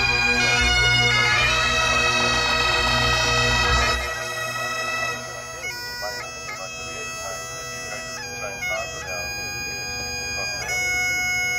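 Music from a wind instrument: a melody over steady held drone notes. A low rumble under it stops about four seconds in, and the music carries on quieter.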